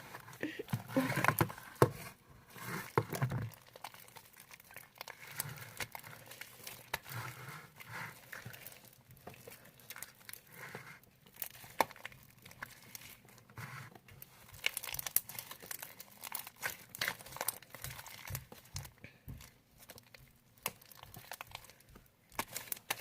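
Homemade glue slime being kneaded and pulled by hand, giving irregular sticky clicks and crackles.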